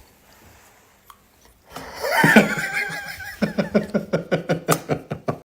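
A person laughing: a high sliding cry about two seconds in, then a rapid run of short laughs, about five a second, that stops suddenly near the end.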